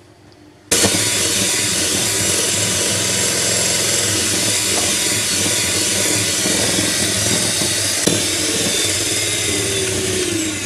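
Electric hand mixer running steadily at speed, starting suddenly about a second in, its twin wire beaters whipping egg whites in a bowl to stiff peaks.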